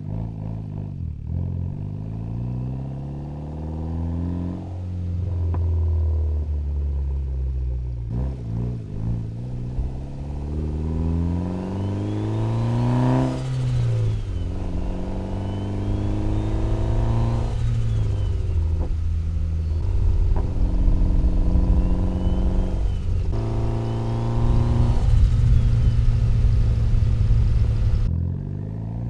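Mitsubishi Lancer Evolution X's turbocharged 2.0-litre four-cylinder accelerating at light throttle, revs climbing and dropping back at each of several gear shifts. A faint turbo spool whistle from the new AGT 57 mm turbo rises and falls as it builds light boost.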